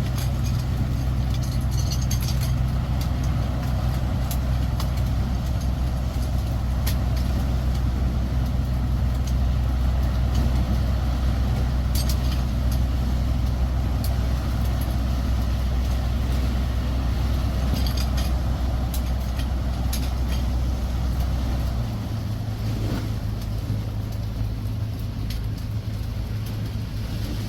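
An engine running steadily, a loud low drone; its deepest part drops away about 22 seconds in, leaving a slightly higher hum.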